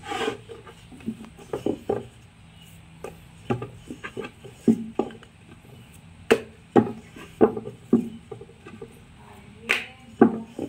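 Wooden rolling pin rolling dough thin on an upturned wooden tray, with irregular knocks and taps of the pin against the wood.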